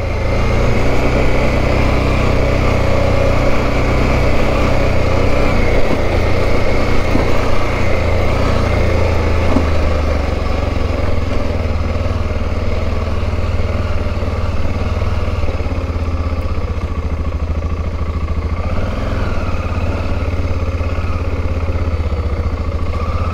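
Adventure motorcycle engine running steadily while being ridden at an easy pace over rough grass, its low drone rising and falling slightly with the throttle.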